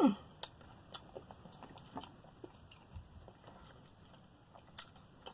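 Close-miked eating sounds: sparse wet mouth clicks and smacks while chewing fried chicken, after a short falling hum of the voice at the very start.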